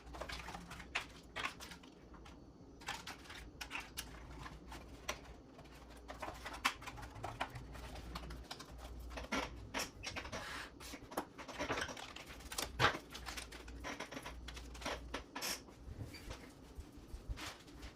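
Irregular light clicks and taps of small parts being handled and set down on a workbench, scattered throughout with no steady rhythm.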